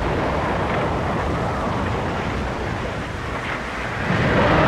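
Anime sound effect of the wind dragon's destructive blast: a loud, sustained rushing roar of wind and rumbling noise that swells louder near the end.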